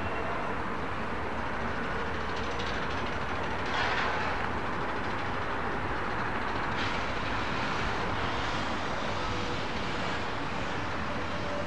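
Train running on the track: a steady rolling noise that swells briefly about four seconds in.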